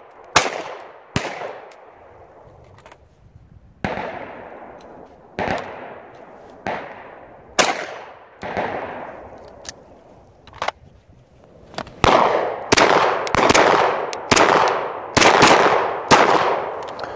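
SIG Sauer P226 TacOps pistol firing a string of shots, each sharp crack trailing off in a long echo. The shots come a second or more apart at first, then faster, about two a second, in the last several seconds.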